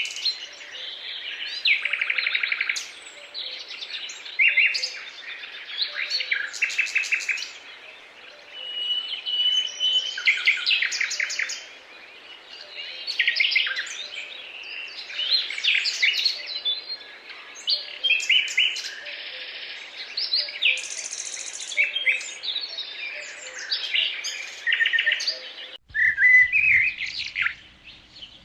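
Several birds singing and calling at once: overlapping chirps, rapid trills and a held whistle. The background hiss cuts off abruptly near the end.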